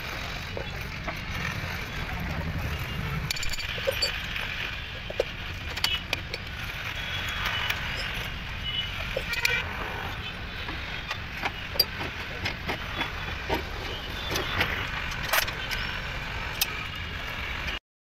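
Small metal clinks, taps and scrapes of a screwdriver and spanner working on the rear hub and brake parts of a Piaggio Ape three-wheeler, scattered irregularly over steady background noise. The sound cuts out for a moment near the end.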